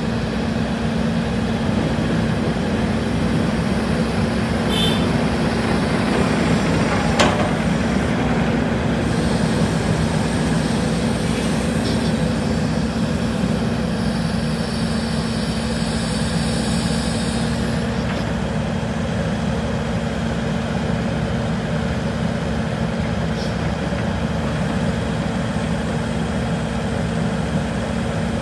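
2015 Takeuchi TB290 excavator's diesel engine running steadily as the boom and arm are worked. A higher whine joins for several seconds partway through, and there is a single sharp clank about seven seconds in.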